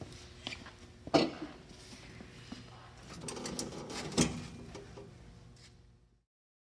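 Metal clunks and rattles of a zero-turn mower's controls being worked by hand: a sharp clunk about a second in, a rattling shuffle, then another loud clunk about four seconds in as a hand lever beside the seat is moved.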